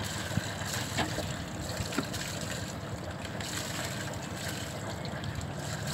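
Sailing yacht's inboard diesel engine ticking over in slow ahead, a steady low running sound, as the boat pushes against a forward spring line to swing its stern off the pontoon.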